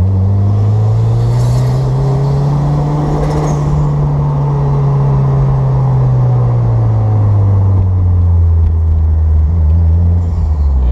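Engine of a 1994 Toyota MR2 Turbo, a turbocharged four-cylinder, heard from inside the cabin while driving, over road rumble. The engine note dips right at the start, climbs and holds for a few seconds, then slowly drops in pitch over the second half as the car slows.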